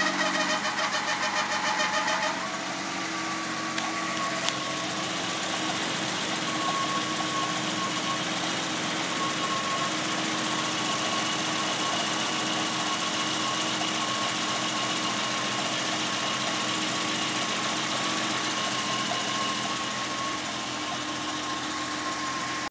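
BMW 325i 2.5-litre straight-six engine at startup: a fast rhythmic pulsing for about two seconds, then it settles into a steady idle with a constant high whine. The owner calls this startup sound a weird noise.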